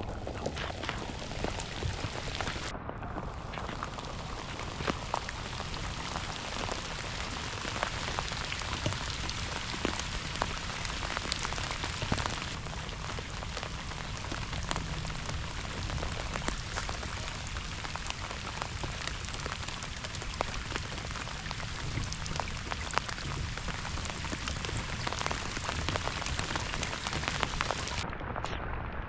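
Steady rain falling, with many close drops ticking sharply throughout.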